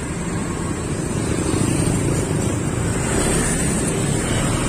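Motor scooters riding past close by, their small engines running. The sound swells gently over the first couple of seconds, then holds steady.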